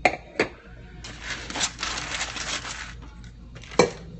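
Handling sounds on a kitchen counter: two sharp knocks, then a crinkling, rustling noise for about two seconds, and another knock near the end.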